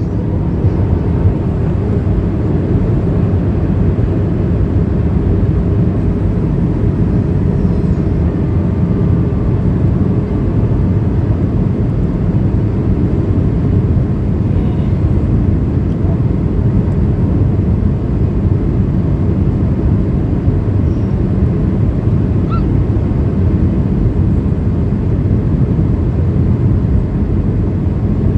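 Steady cabin noise of a Boeing 737-800 in descent, heard inside the cabin: an even, deep rush of airflow and its CFM56-7B engines, with a faint steady hum in the first several seconds.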